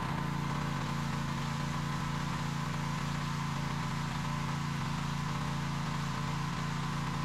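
TEANDE 4200 PSI gas pressure washer, its 209cc engine running steadily under load, with the hiss of the high-pressure water jet spraying the concrete walkway.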